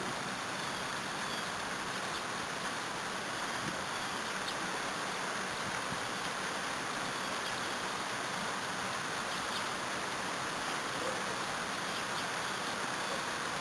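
Steady rain shower falling, an even hiss of rain with a few faint, short high chirps.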